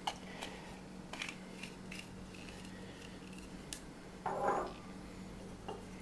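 Light clicks and taps of small objects (a bottle, a cap, a plastic cup) being handled and set on a wooden tabletop, with one louder short rub about four and a half seconds in, over a faint steady hum.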